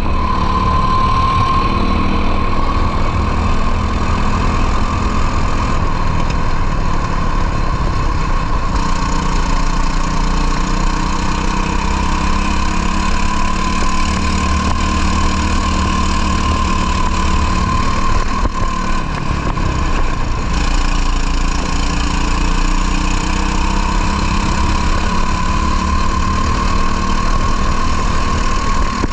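Racing kart's two-stroke engine running at high revs on track. Its pitch stays high and wavers gently up and down as the throttle is worked through the corners.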